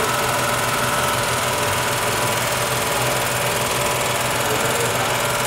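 A steady mechanical hum from a running motor, with constant tones that hold the same pitch throughout.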